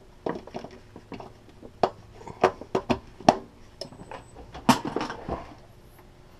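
A string of sharp clicks and knocks of handling, loudest about three and about four and a half seconds in: a power cord's plug pushed into a receptacle, then a sheet-metal power box being picked up and set down.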